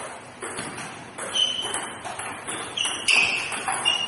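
Table tennis rally: the celluloid-type ball clicking sharply off the rubber paddles and the table top about every half second, each hit with a short high ping, the loudest hit about three seconds in.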